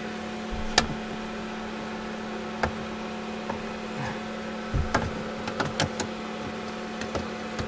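Scattered clicks and knocks of a window screen frame being handled and pushed into an RV window frame, with a cluster of them about five seconds in, over a steady hum.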